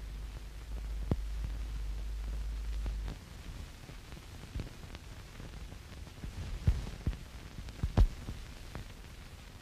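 Noise from an old film soundtrack: a low hum for about the first three seconds, then faint hiss with scattered sharp clicks and pops, the loudest near the end.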